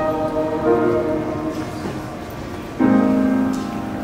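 Piano playing slow sustained chords; a new chord is struck about three seconds in and rings away.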